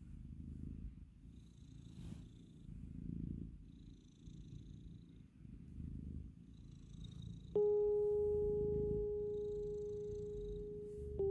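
Domestic cat purring, a low rumble that swells and fades with each breath. About seven and a half seconds in, a pure bell-like tone starts suddenly and rings on, slowly fading; it is the loudest sound, and it is struck again near the end.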